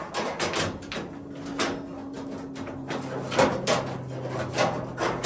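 Sauna heater stones clicking and scraping against one another and against the steel stone guard of a Saunum heater as they are fitted in by hand. The knocks come irregularly, the sharpest about three and a half seconds in.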